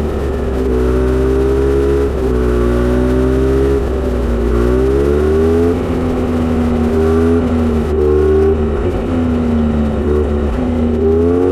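Kawasaki Z900RS inline-four through a Misty Kintaro short straight-pipe exhaust, running under way. The exhaust note holds steady, then steps and glides up and down several times as the throttle changes, with clear rises about four to six seconds in and again near the end.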